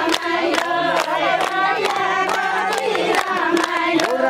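A group of women singing a Nepali ratyauli folk song together, with steady rhythmic hand-clapping about three claps a second.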